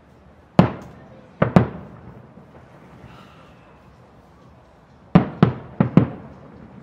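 Aerial firework shells bursting: three sharp bangs in the first second and a half, then four more in quick succession about five seconds in, each trailing off in a short echo.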